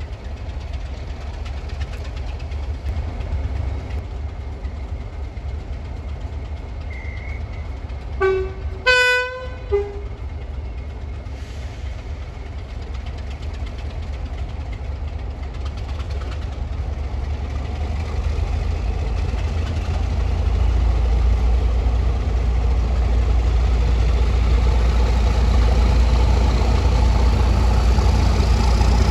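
Heritage diesel locomotive's engine running with a deep, steady rumble, its horn sounding a few short notes of differing pitch about eight seconds in. The engine grows steadily louder through the second half.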